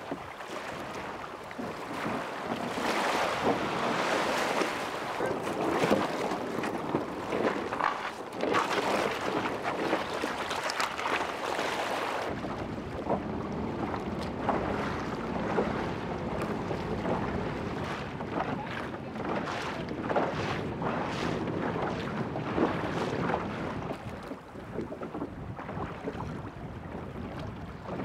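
Wind buffeting the microphone over choppy water, with water lapping and splashing around kayaks being paddled. The hiss is weaker from about halfway through.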